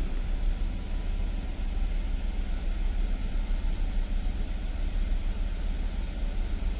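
Chevrolet Camaro SS V8 engine idling steadily, with a low, even rumble.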